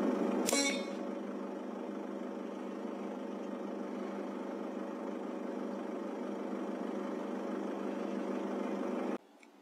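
A vehicle engine idling with a steady hum. A single sharp crack with a brief ring comes about half a second in. The hum stops abruptly near the end.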